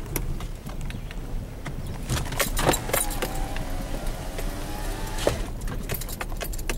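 Clicking and rattling inside a car, with a wavering tone for about two seconds midway.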